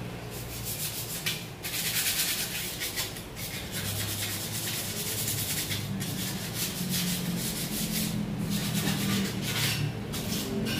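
Abrasive sanding on a scooter's metal chassis: repeated scraping strokes at an irregular pace, stripping the frame ahead of powder coating.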